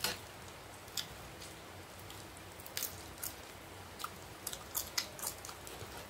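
Close-miked eating sounds of rice and dal eaten by hand: irregular wet clicks and smacks of chewing, with the squish of rice being mixed.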